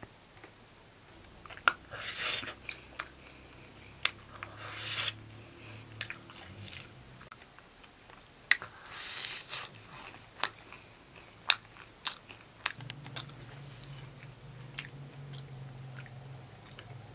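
Close-up sounds of people eating fried pastries: crisp bites and chewing, with sharp crunches scattered throughout and a few longer bouts of chewing. A low steady hum comes in about two-thirds of the way through.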